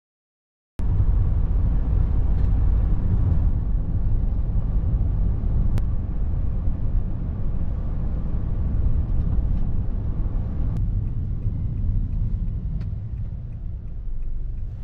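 A car driving, with a steady low road and engine rumble that starts abruptly about a second in and eases a little near the end.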